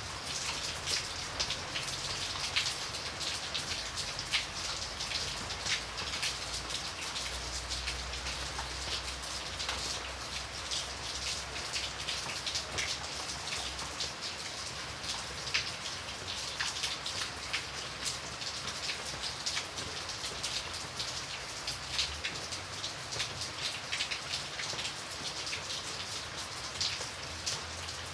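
Light rain falling steadily, a constant hiss with many small drops pattering and dripping on a surface.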